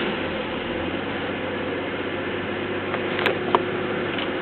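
Holden Commodore VX engine idling steadily, just started with the key in a newly fitted ignition barrel. Two light clicks a little past three seconds in.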